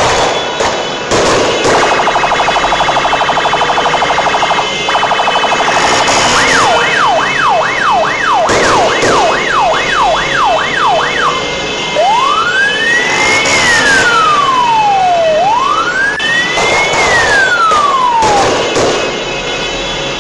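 Ambulance siren cycling through its patterns: a fast pulsing tone, then a quick yelp rising and falling about twice a second, then a slow wail rising and falling twice. Several sharp bangs go off over it.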